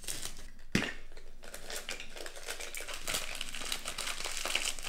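Plastic packaging crinkling as it is unwrapped by hand: clear plastic wrap peeled off a collectible can, then a black plastic bag handled and pulled open. There is a steady run of crackling with one sharper crackle just under a second in.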